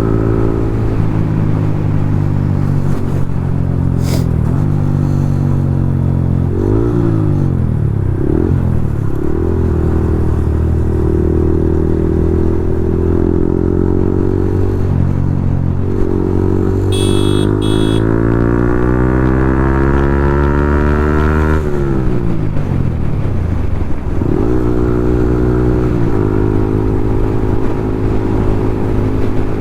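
Yamaha MT-15's single-cylinder engine through a loud Akrapovic full-system exhaust, ridden hard: it revs up and drops back several times, with a long climb in pitch about two-thirds of the way through that breaks off sharply as the throttle closes.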